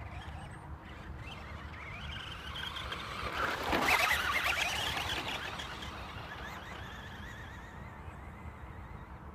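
Electric RC short-course truck from ECX driving past on a dirt track. Its motor whine rises as it approaches and is loudest as it passes about four seconds in, then drops in pitch and fades as it pulls away, with a spray of dirt from the tyres at the closest point.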